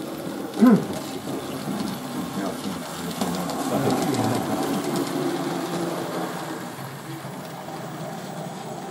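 Indistinct chatter of many people in a busy hall, over a model train running along its track. About a second in, a short rising-and-falling vocal sound stands out as the loudest moment.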